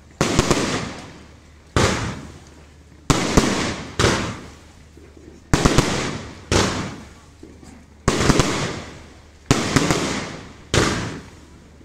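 Aerial firework shells bursting one after another, about nine sharp bangs at roughly one every second and a half, each trailing off over about a second.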